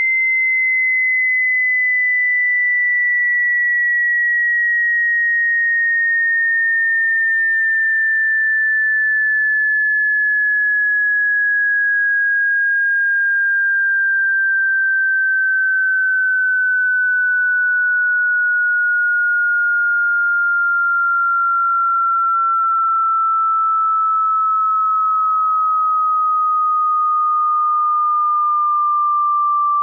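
Pure sine-wave hearing-test tone sweeping from high to low, a single steady tone sliding slowly and evenly lower in pitch, by a little less than an octave, at a constant loudness.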